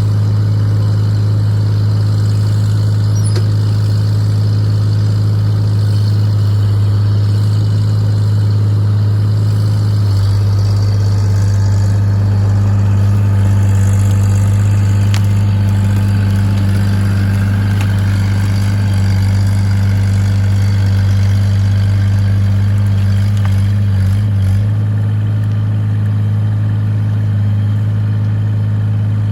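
Excavator engine running steadily, its note shifting slightly about ten seconds in.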